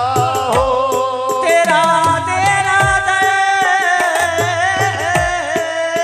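Qawwali music: men's voices singing a held, wavering melody over a sustained instrumental line, with hand-drum strokes whose low notes slide down in pitch.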